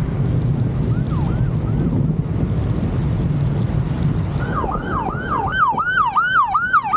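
Police car siren in a fast yelp, sweeping up and down about three times a second. It is faint at first, then loud and close from about four and a half seconds in, over a steady low wind rumble from the moving motorcycle.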